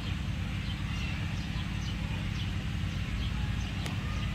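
Steady low background hum with faint high chirps, and a single light click near the end.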